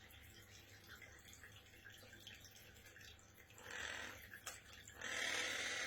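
Water dripping and trickling faintly in a small bird bath, then two short bursts of splashing water, the second louder, near the end.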